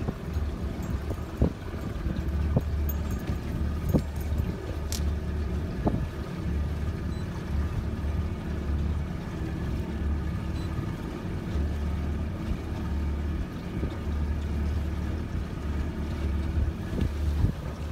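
Small aluminium motorboat under way: a steady low engine and hull rumble, with wind buffeting the microphone in gusts. A few light knocks come in the first six seconds.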